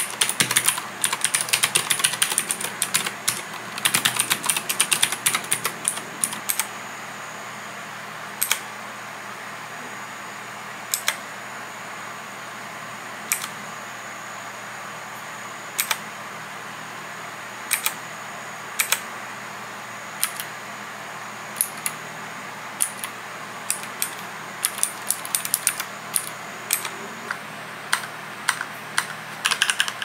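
Typing on a mechanical keyboard. Fast runs of key clicks come in the first few seconds and again near the end, with single keystrokes every second or two in between.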